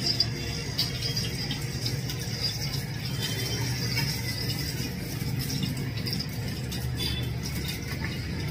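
Steady low rumbling noise with light clicks and rattles as cooking oil is poured from a plastic bottle into an aluminium pot.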